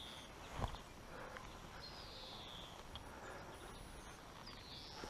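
A bird repeating a short call that slides down in pitch, about every two and a half seconds, over faint outdoor background noise. A single thump about half a second in.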